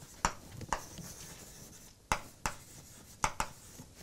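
Chalk writing on a blackboard: a string of short, sharp taps and scrapes as words are written, several coming in quick pairs.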